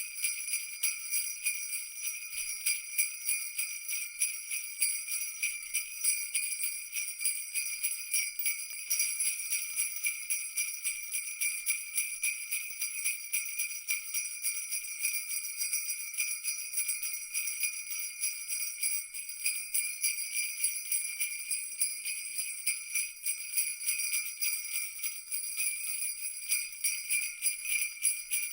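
Jingle bells shaken continuously in a fast, steady jingle, ringing high with several bright overlapping tones.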